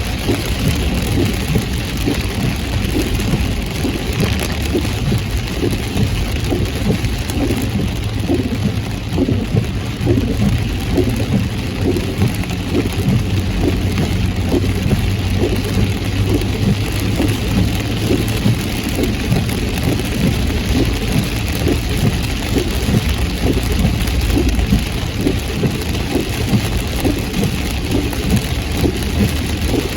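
Heavy rain pattering densely on a moving car, with a steady low rumble of engine and road noise underneath.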